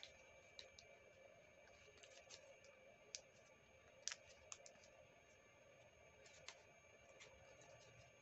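Faint, scattered clicks and crackles of origami paper being folded and creased between the fingers, over a faint steady background tone.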